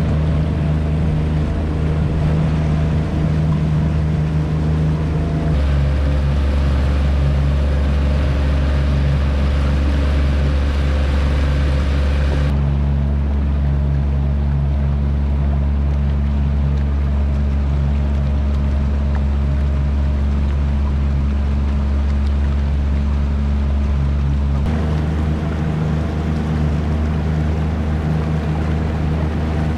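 A passenger boat's outboard motor running steadily at cruising speed, a loud drone, with water rushing along the hull from the wake. The drone's tone changes abruptly a few times.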